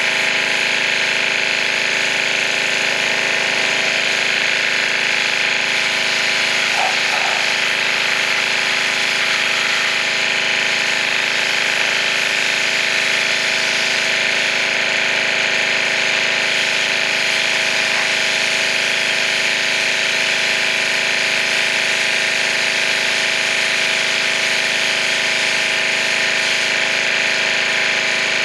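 Pressure washer running steadily: a constant motor hum under the hiss of the high-pressure water spray.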